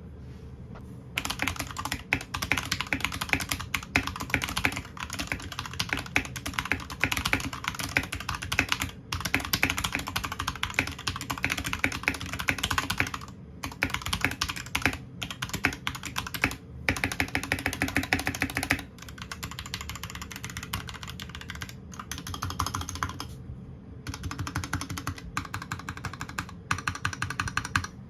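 Royal Kludge RK61 mechanical keyboard, modded with a piece of tablecloth, being typed on in fast runs of key clicks. The typing starts about a second in and stops briefly several times.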